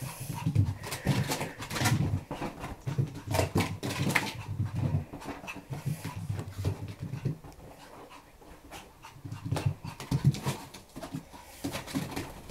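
A small dog whimpering and panting in repeated short bouts, with a quieter lull midway.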